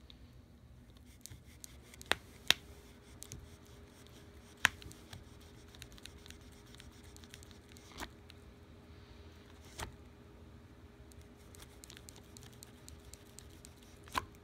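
Cloth wiping and rubbing over the edge of a thin plastic PDLC smart-film sheet, cleaning the exposed layer with rubbing alcohol before copper tape goes on. A handful of sharp crackles stand out, spread unevenly.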